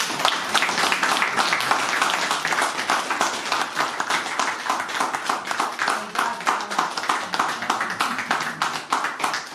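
A small audience applauding, many hands clapping steadily and thinning out near the end.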